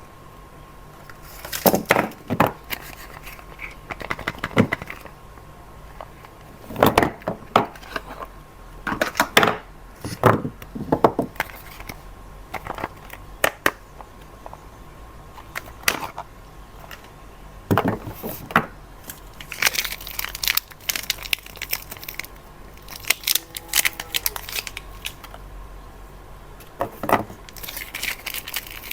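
Soap bars being unwrapped by hand: packaging crinkling and tearing in short separate bursts with pauses between.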